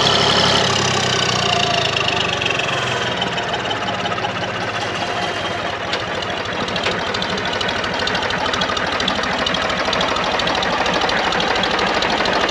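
An engine running steadily, with a fast, even low pulse.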